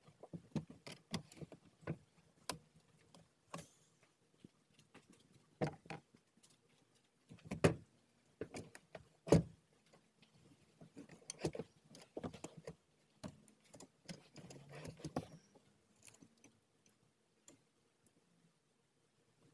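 Irregular clicks, clunks and rattles of a car's front passenger seat being worked loose and handled, its metal frame and plastic trim knocking. The two loudest knocks come about halfway through, and the handling dies down after about fifteen seconds.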